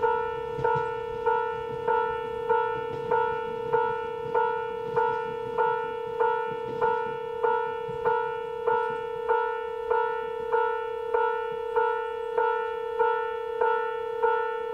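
Japanese railway level-crossing alarm: an electronic warning bell striking a ringing two-tone note evenly, about one and a half times a second, while a train clears the line.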